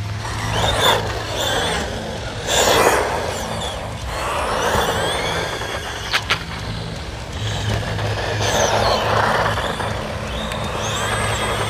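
Small-scale LC Racing RC car's electric motor whining up and down as it accelerates and slows, with bursts of rustling from the car running over rough ground and two quick clicks near the middle. A steady low hum sits underneath.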